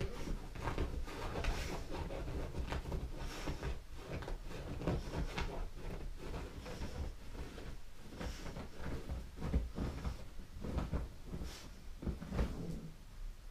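A dog digging and scratching at bedsheets with its paws: a long run of fast, irregular scuffs and fabric rustles on the mattress, which stops about a second before the end.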